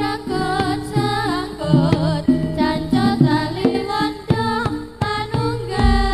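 Live jaranan ensemble music: quick hand-drum (kendang) strokes and low pitched notes under a wavering, ornamented melody line.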